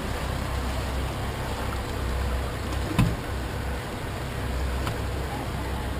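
Motorboat running with a steady low rumble and water and wind noise, and one sharp thump about halfway through.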